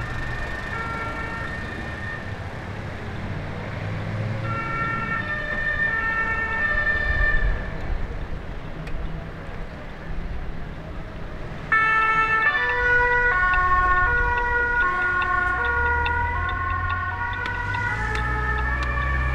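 German two-tone emergency vehicle sirens (Martinshorn) alternating between two pitches as a fire engine drives past, with its diesel engine rumbling underneath. The siren fades, then about twelve seconds in a louder siren cuts in suddenly and overlaps with another, from more emergency vehicles nearby.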